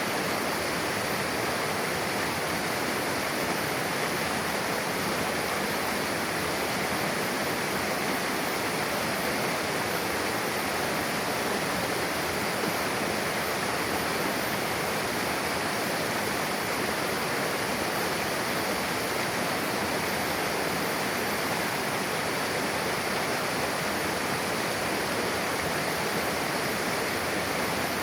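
Mountain river rushing steadily over rocks where two streams meet, a constant even roar of flowing water.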